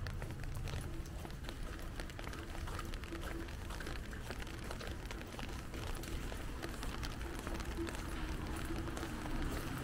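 Steady rain falling, heard as a dense patter of small drop ticks over a low rumble.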